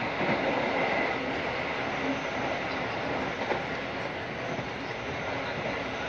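Running noise heard from inside an economy-class passenger carriage of a moving train: a steady rumble of steel wheels on the rails, with a few faint knocks.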